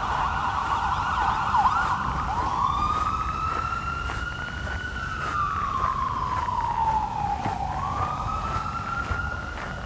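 Emergency vehicle siren passing in city traffic: a fast yelp for the first two seconds, then a slow wail that rises, falls over several seconds and rises again. Low traffic rumble underneath.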